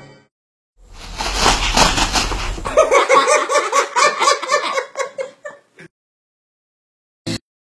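A noisy burst with a deep rumble, then a voice laughing in quick pitched pulses for about three seconds before cutting off. A single short knock comes near the end.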